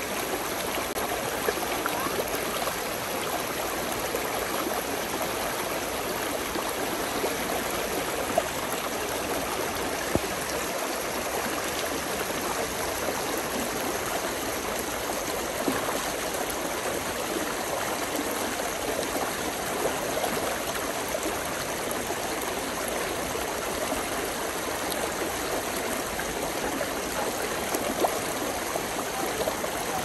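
Small mountain brook babbling steadily, with a few brief louder splashes now and then.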